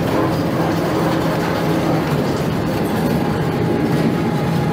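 Heavy scrap-yard machinery running, a material handler and car shredder, with a steady low hum under continuous metallic clattering and rattling.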